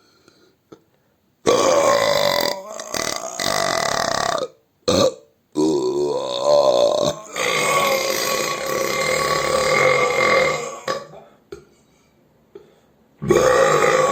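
Loud, long human belches: one lasting about three seconds, a short one, then one of about five seconds that wavers in pitch at first and then holds steady. After a brief pause another long belch starts near the end.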